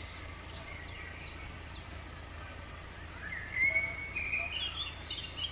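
Wild birds calling outdoors: scattered short high chirps, then a longer warbling phrase about three seconds in.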